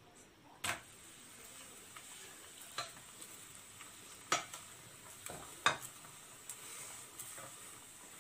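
Paratha frying in a little oil in a non-stick pan, a faint steady sizzle, with a spatula tapping and scraping against the pan several times.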